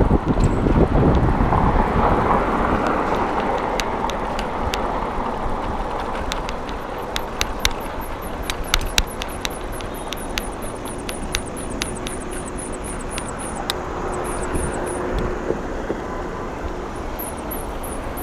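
Wind and road noise while riding a folding bicycle along a road, with scattered sharp clicks in the middle and, later on, a run of quick, high chirps.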